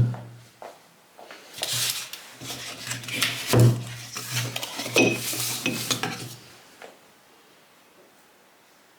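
Dishes and utensils being handled, rubbing and clinking against each other in a run of bursts lasting about five seconds, then stopping.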